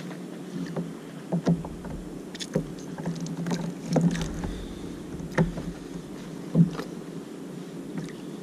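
Scattered knocks and clicks of handling on a plastic kayak, about seven in all and loudest near the end, as a freshly caught bigfin reef squid and its egi lure are handled over a steady low rumble.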